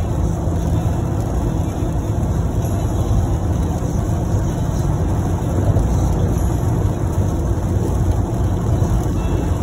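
Steady, low road noise inside a moving car's cabin as it drives along a wet expressway.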